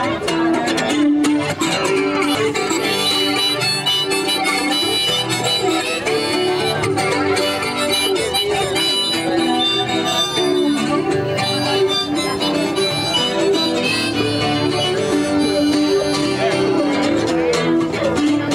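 A harmonica on a neck rack and a strummed acoustic guitar played together by one musician, a steady folk tune that runs on without a break.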